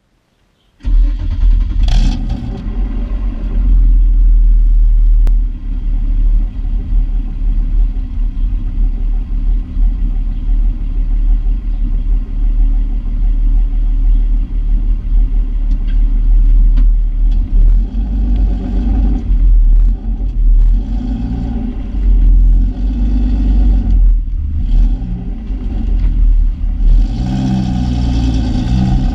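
1995 BMW E36 M3's 3.0-litre straight-six through the stock twin-tip muffler, its insulation removed and the catalytic converter and resonator deleted. It is idling, with a brief rise about two seconds in, several short throttle blips in the second half and a longer rev near the end.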